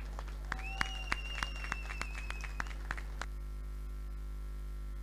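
Faint, scattered clapping from an audience applauding, about three or four claps a second, dying away about three seconds in. A thin, high steady tone sounds over the first half.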